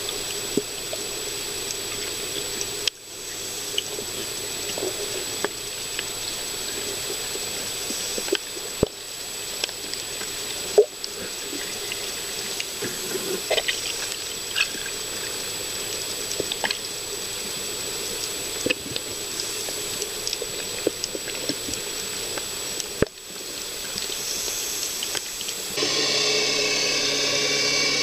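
Underwater ambience picked up by a camera in its housing: a steady watery hiss scattered with sharp clicks and crackles, broken by two brief drop-outs. Near the end a louder steady whir with several tones comes in.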